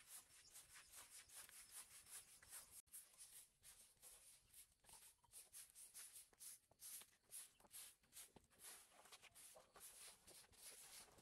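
A broom and a scraping tool sweeping dead leaves and dirt across concrete: repeated brisk scratchy strokes, a couple a second, with a momentary break about three seconds in.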